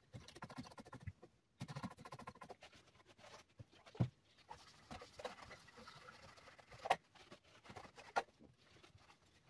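Hands handling and fitting radio parts: faint rustling and scattered small clicks, with a sharper tap about four seconds in and another about seven seconds in.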